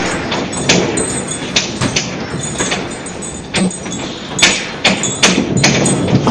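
A house shaking in a strong earthquake: a continuous rumble with irregular sharp knocks and rattles from the walls and furniture.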